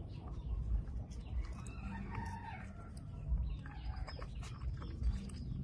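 A rooster crows once, a drawn-out call that rises and falls, starting about a second and a half in. Scattered soft clicks and thumps and a low rumble run underneath.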